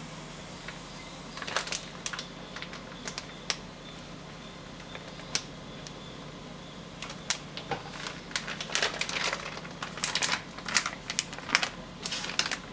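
Printed bag of coating powder crinkling and crackling in irregular clicks as it is squeezed, shaken and tipped to pour powder over meat in a stainless steel bowl, the crackles coming thick and fast over the last few seconds.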